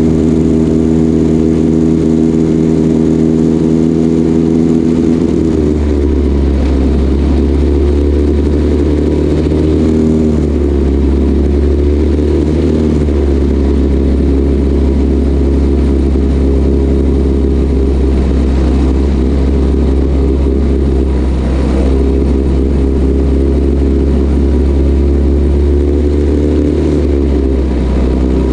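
Junior dragster's single-cylinder engine running at low speed, heard from on board the car. The engine note steps to a different pitch a few times as the throttle changes.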